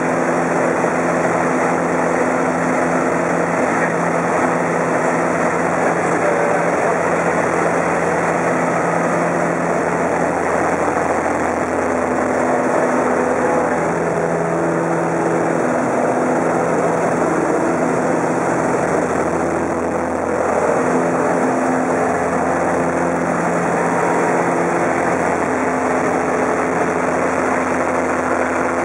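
Bellanca Super Decathlon's four-cylinder Lycoming engine and propeller running under power, heard from inside the cockpit during aerobatic flight. A steady drone whose pitch shifts a little a few times as the plane manoeuvres.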